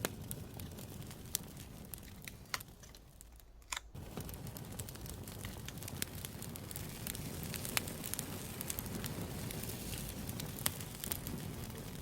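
Campfire crackling: a steady hiss of burning wood with frequent sharp pops and snaps, dropping away briefly about three and a half seconds in.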